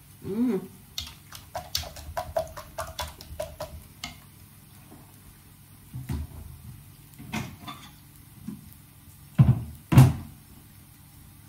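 Household handling noises as someone moves about fetching a plate: a quick run of light clicks and clinks over the first few seconds, then a few separate dull knocks and thumps, the loudest two close together near the end.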